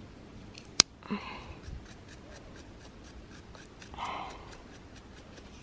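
A mushroom knife's brush and blade working over a freshly picked wild mushroom. There is a sharp click about a second in, then a short brushing scrape, and a second scrape about four seconds in.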